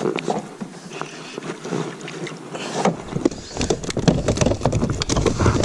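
Knocks, scrapes and rustling as a hooked largemouth bass is brought in and lifted aboard a plastic Bonafide SS107 fishing kayak, with rod and gear knocking on the hull. A low rumble starts about three seconds in.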